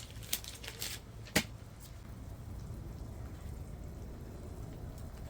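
A few light clicks and taps in the first second and a half, the sharpest about a second and a half in, then a steady low hum.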